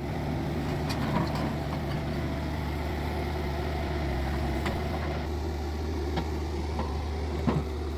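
Engine of excavation machinery running steadily at an even pitch, with a few faint clicks and knocks on top.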